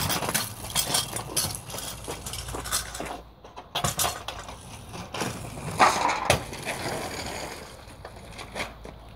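Irregular crunching and clicking of kick-scooter wheels and shoes on loose gravel, with a louder clatter about six seconds in.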